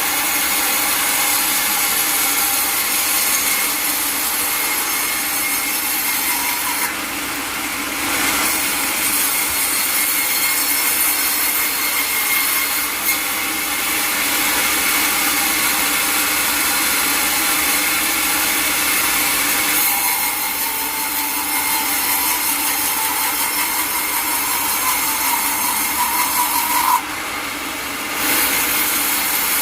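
Powered sawmill blade cutting steadily through a log, a continuous dense whir with a steady whine. The sound drops briefly about seven seconds in and again near the end.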